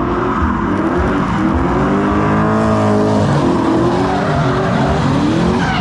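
Drift cars' engines revving hard, their pitch rising and falling repeatedly, over the squeal and hiss of tyres sliding through a corner.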